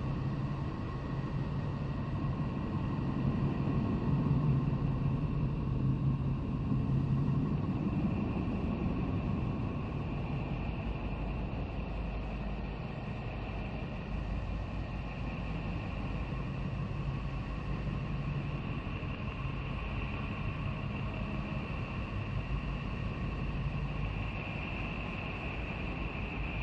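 Sonified space recording presented as NASA Voyager's 'sounds of Neptune': a steady, rumbling, hissing drone with faint steady whistle-like tones above it. The low rumble swells a few seconds in, and the higher tone grows stronger near the end.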